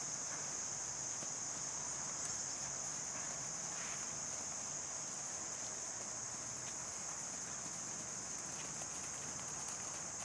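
A steady high-pitched insect chorus, with faint hoofbeats of a horse trotting on soft sand arena footing.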